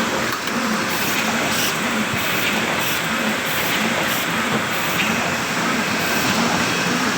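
JB-800A full-automatic spot UV screen printing machine running, a steady mechanical clatter repeating about twice a second.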